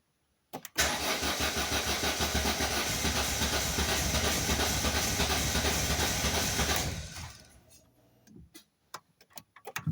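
Volvo 480 Turbo's four-cylinder engine cranked on the starter motor for about six seconds with an even pulsing beat, never catching, then spinning down when the key is released. It turns over but will not fire, even with a new fuel pump, ignition leads, spark plugs, rotor and distributor cap fitted. A few clicks come just before the cranking and again near the end.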